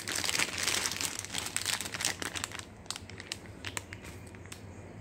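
Clear plastic bags crinkling as they are handled: a dense run of crackles for the first couple of seconds, then a few scattered crackles that thin out.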